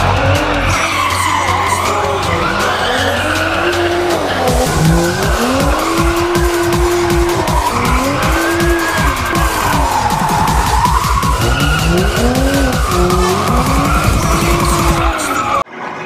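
BMW 135is doing burnout donuts: its turbocharged inline-six revs up and down in repeated swells while the rear tires squeal and skid, the old tires being deliberately burned off. The sound cuts off suddenly near the end.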